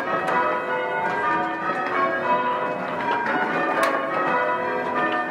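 A ring of six church bells, cast by mixed founders, rung full circle in English change ringing: a steady succession of strikes, several a second, whose tones overlap and hang on.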